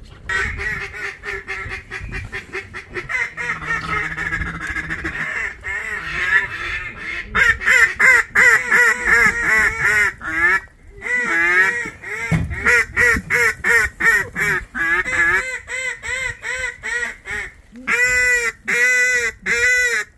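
Duck quacking in long, rapid runs of loud, closely repeated quacks, briefly breaking off twice about halfway through and coming loudest near the end.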